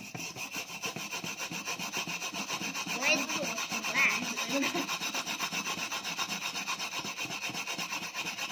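Fast back-and-forth scrubbing of a blackened frying pan with a steel wool scouring pad through a gritty baking soda paste. It is a continuous rasping scrape of rapid strokes, working at the burnt-on black crust.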